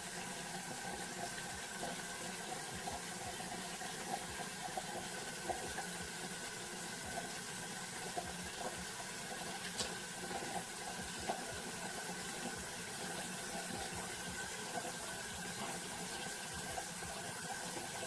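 Bathroom sink tap running, a steady hiss of flowing water with a few faint splashes.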